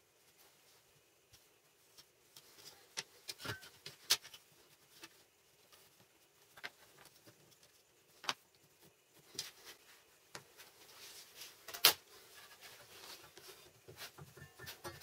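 Scattered light clicks and taps of a plastic set square, small wooden blocks and a mechanical pencil being handled and set down on a workbench top, with a few sharper clicks among them.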